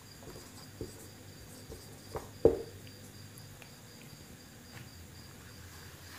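Marker pen writing on a whiteboard, with a few soft knocks; the loudest comes about two and a half seconds in. A faint steady high-pitched trill runs underneath.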